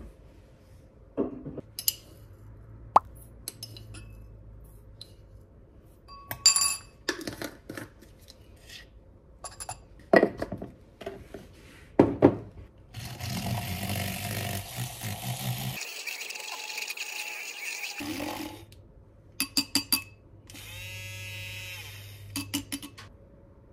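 Glass and spoon clinks and items set down on a counter, with a few seconds of rushing noise in the middle. Near the end a handheld battery milk frother whirs in a glass bowl, whipping coffee into foam.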